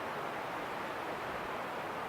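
Steady wind blowing: an even, unbroken rushing hiss.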